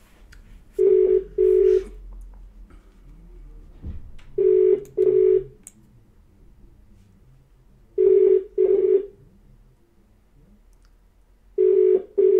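Telephone ringback tone of an outgoing call: a steady low tone in double pulses, ringing four times about every three and a half seconds while the call waits to be answered.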